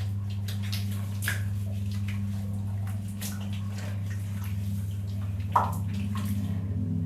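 Bathroom with the water off: scattered drips and small knocks over a steady low hum, the loudest a sharp tap about five and a half seconds in.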